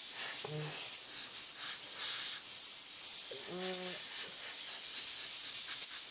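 Compressed-air blow gun giving a steady high hiss as it blows dust off a copper-clad PCB blank.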